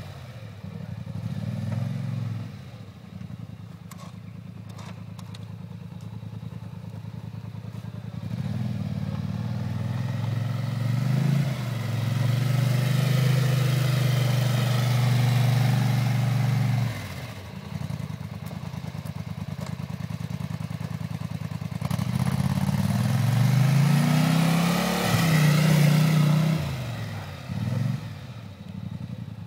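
Polaris Sportsman 850 XP ATV's twin-cylinder engine running as the quad pushes snow with a front plow blade, revving up and falling back several times, with two longer, louder pushes under load, one midway and one near the end.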